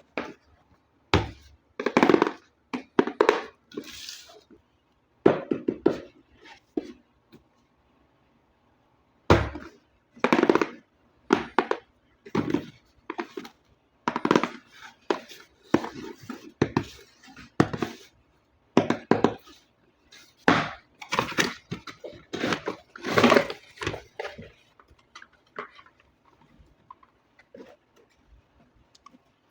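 Packaging of a toy RC car being handled and opened: irregular crinkling, rustling and light knocks that come in bursts, with a pause of about two seconds near the middle.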